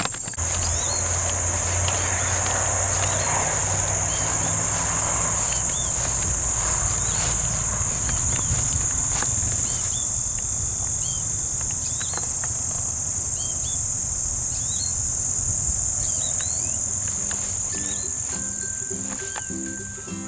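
Insects in full chorus, a steady high-pitched drone, with short bird chirps over it.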